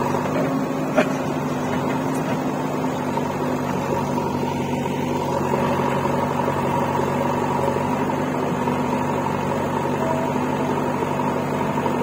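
Diesel engines of a JCB 3DX backhoe loader and a tractor running at a steady speed, with a single sharp click about a second in.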